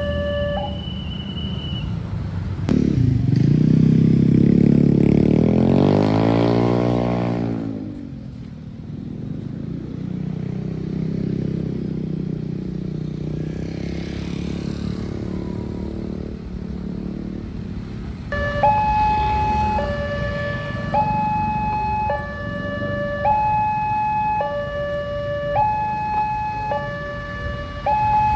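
Railway level-crossing warning alarm sounding an electronic two-tone signal, switching between a higher and a lower note about every second; it stops just after the start and starts again about two-thirds of the way through. In between, a vehicle passes close by with a loud rushing sweep, followed by steady traffic noise.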